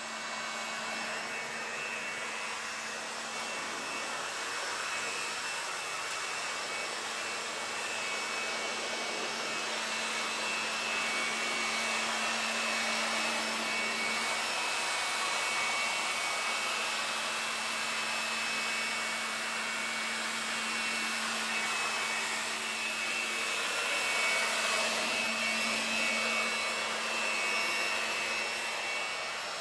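A small electric motor running steadily with a rush of air, a constant low hum and a high whine over it.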